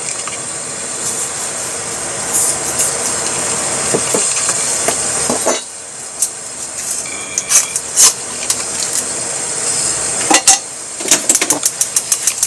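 Utensils and cookware clinking over a steady hiss. Near the end, a pat of butter goes into the hot frying pan and starts to crackle and spit in quick pops.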